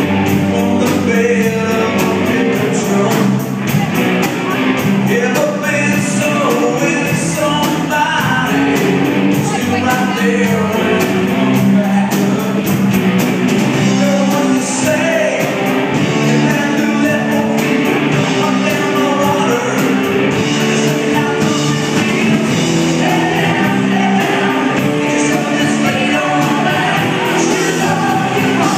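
Live rock band playing a song: electric guitars and drums with a lead vocalist singing, loud and continuous, with the echo of a large hall.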